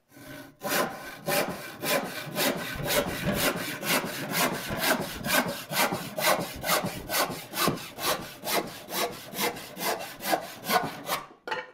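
Irwin 20-inch hand saw cutting fast across a 1.5-inch-thick wooden board: a rapid, even rasp of about four strokes a second. The strokes stop near the end as the saw comes through the wood.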